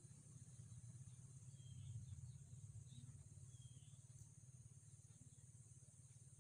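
Near silence: faint room tone with a steady low hum and a high hiss, and a few faint, short high chirps.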